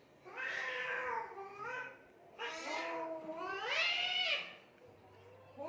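Domestic cats yowling at each other in a fight: two long, wavering yowls of about two seconds each, rising and falling in pitch, with a short break between them.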